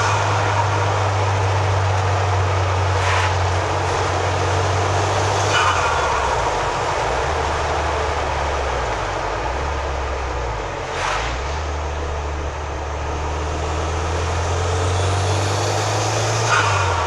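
Turbocharged Honda F22Z2 four-cylinder engine with a TD04-13T turbo running, its note dropping and rising again as the throttle opens and closes. About four times, on lift-off, there is a short rush of turbo boost being released as flutter or blow-off.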